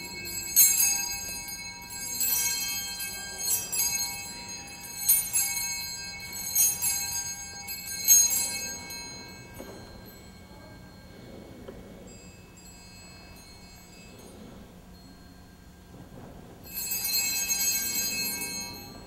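Altar bells (Sanctus bells) rung in six short shakes about every second and a half, each ringing out, then one longer ring near the end. They mark the elevation of the chalice at the consecration.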